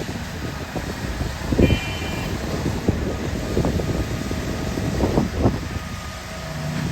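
Heavy construction machinery running steadily, with irregular knocks and clunks over the engine rumble and a brief high whine about a second and a half in.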